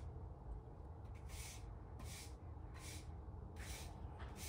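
Long-handled grass shears snipping a small lawn: faint, short hissing cuts, about one every 0.7 s, with a pause around the first second, over a low wind rumble on the microphone.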